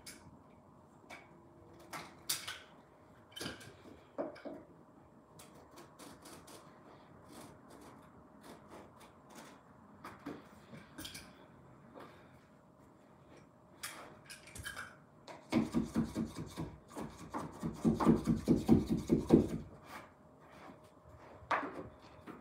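Hand work on a carpet edge at the base of fitted wardrobes: scattered small clicks and scrapes, then, about two-thirds of the way in, a quick run of rubbing, scraping strokes lasting about four seconds, the loudest part.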